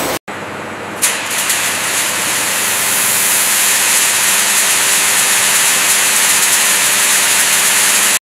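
Rubber granules pouring and sifting through a multi-layer vibrating sieve: a steady hiss with a brief swell about a second in. It cuts off abruptly near the end.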